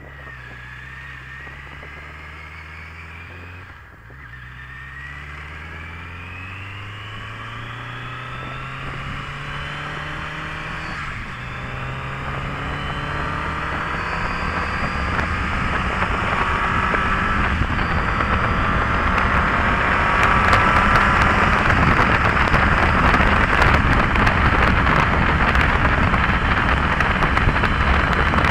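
Motorcycle engine accelerating through the gears, its pitch rising and dropping back at each shift, twice. Wind noise on the microphone grows steadily louder until it drowns out the engine.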